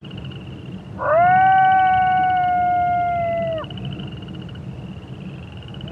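A coyote howling once: a quick rise into one long steady note about a second in, sagging slightly before it breaks off about two and a half seconds later. Frogs and toads trill steadily underneath.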